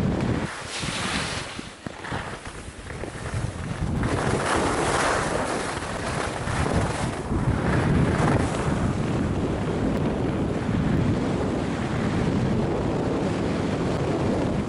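Wind rushing over the microphone of a skier's camera during a downhill run, mixed with the skis scraping on packed snow. It dips briefly about one to two seconds in, then runs on steadily.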